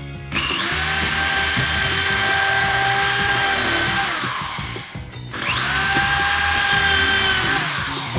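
Electric power tool running at high speed in two long runs, each spinning up to a steady high-pitched whine and then winding down, with a short gap between them.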